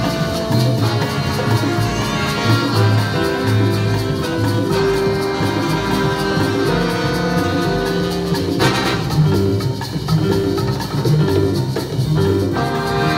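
Live Latin big band playing: a double bass line with congas and timbales driving the rhythm under a horn section of saxophones, trombones and trumpets. A sharp accent hits about nine seconds in.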